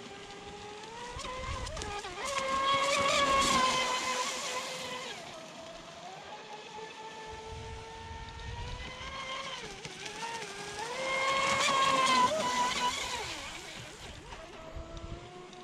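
Custom Pro Boat Sonicwake 36 RC speedboat running at speed, its Leopard 4074 brushless motor and surface-piercing prop making a high whine that rises and falls in pitch. The whine swells as the boat makes two close passes, loudest about three seconds in and again around twelve seconds in.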